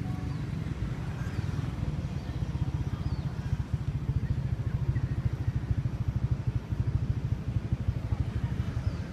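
A small engine running with a steady, fast pulse, getting louder about four seconds in and easing off near the end.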